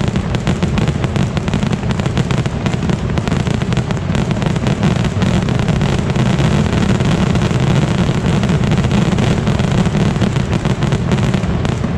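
Massed firework barrage: a huge number of rockets and bangers going off at once in an unbroken, rapid crackle of bangs that merge into a continuous low rumble, easing slightly near the end.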